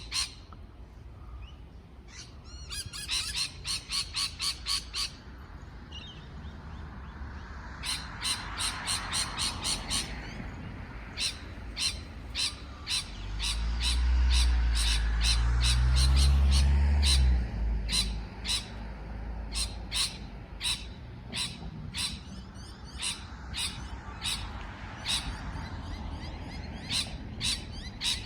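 Parrot giving short, sharp chirping calls, first in quick runs of several a second, then singly at a steady pace of more than one a second. A loud low rumble runs for about four seconds midway.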